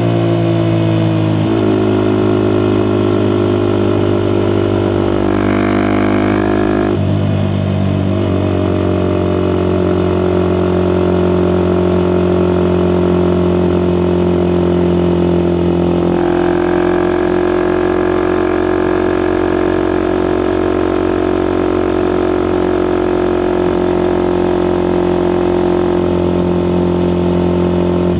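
Suzuki Gixxer SF 250's single-cylinder engine through a Yoshimura R11 exhaust, running at steady revs while riding, its note jumping to a new steady pitch a few times, about 7 and 16 seconds in.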